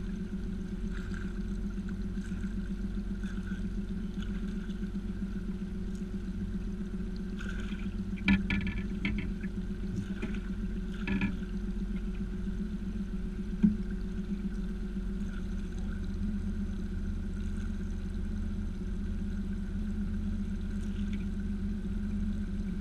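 A small boat's motor runs with a steady hum. A hooked pike splashes briefly at the surface beside the boat about 8 and 11 seconds in, and there is a single knock a little later.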